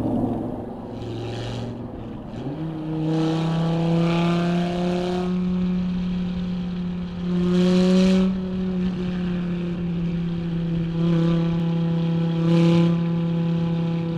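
Dodge Viper ACR's V10 with the catalytic converters removed, running with its exhaust note close up. The engine steps up in pitch about two and a half seconds in, then holds a steady drone with several short, louder surges on the throttle.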